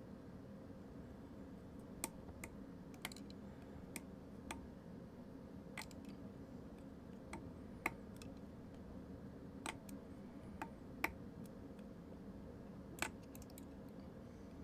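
Irregular small clicks and ticks, about a dozen, from fly-tying tools and fingers handled at a tying vise, over a steady low room hum. The loudest clicks come near the middle and just before the end.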